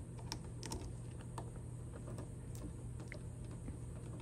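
Scattered small clicks and ticks of electrical wires being handled and twisted together into a plastic wire nut, over a steady low hum.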